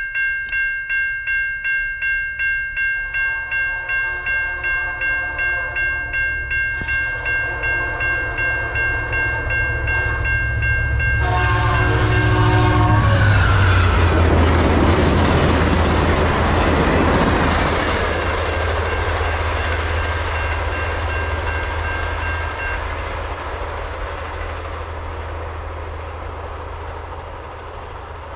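Level-crossing bell ringing in even strokes while a VIA Rail passenger train behind an F40PH diesel locomotive sounds several horn blasts. The train then rushes past with wheels clattering on the rails, loudest a little under halfway through, and fades as it goes away.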